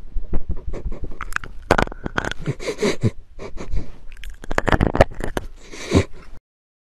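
A small dachshund-type dog sniffing and snuffling right at a handheld microphone held to its nose, giving close, irregular puffs of breath mixed with clicks and rubbing from the microphone.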